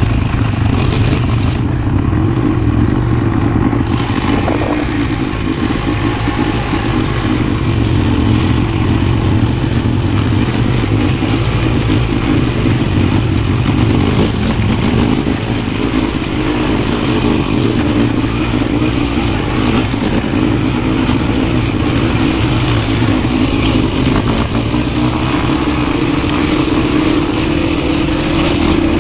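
ATV engine running steadily, loud and close to the microphone.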